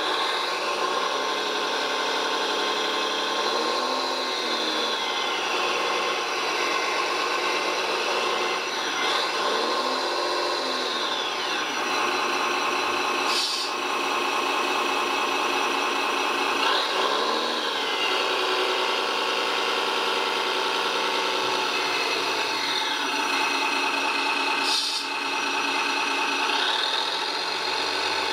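Electric motors and hydraulic pump of a radio-controlled Liebherr LTM 1055 mobile crane model whining as the boom is raised and the superstructure slews, the pitch rising and falling several times as the motors speed up and slow, over a steady hum. Two short clicks, one about halfway and one near the end.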